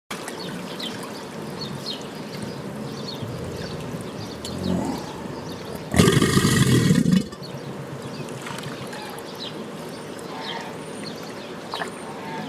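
A crocodile growling once, about six seconds in, for just over a second, over a steady background of trickling water.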